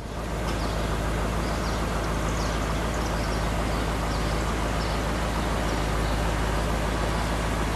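The 1959 Ford Fairlane 500 Skyliner's 352 V8 idling steadily while the retractable hardtop mechanism lifts the rear deck lid.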